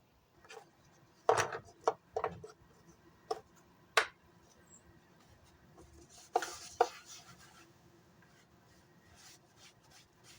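Several light knocks and clicks of objects being handled and set down, clustered in the first four seconds with two more a little past six seconds.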